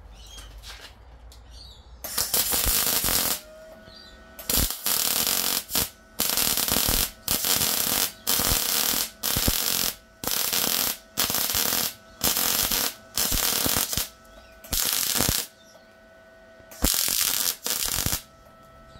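MIG welder arc running in about a dozen short bursts, each up to about a second long with brief pauses between, as stitch welds fill a widened gap in a steel angle-iron jig.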